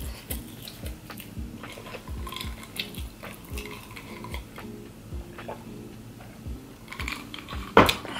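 Close-miked chewing of pizza, with a drink of water from a glass partway through and one sharp, loud knock near the end.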